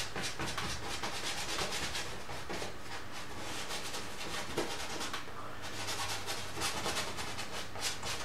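Paintbrush rubbing oil paint into a painting in quick repeated dry-brush strokes, about three a second, with a brief pause about five seconds in.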